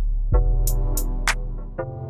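Background electronic music with a steady beat: deep bass-drum hits, sharp high ticks like hi-hats, and held synthesizer tones.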